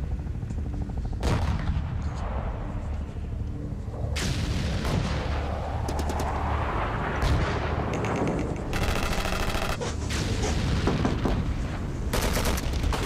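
Bursts of rapid automatic gunfire and booming explosions over a steady low rumble. The densest rattle of shots comes about nine seconds in, and more bursts follow near the end.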